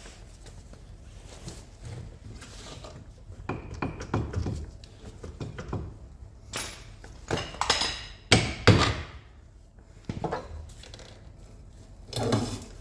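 Irregular clanks and knocks of tools on car rear-suspension parts during a strip-down, a few of them ringing like metal. The loudest pair comes a little past halfway.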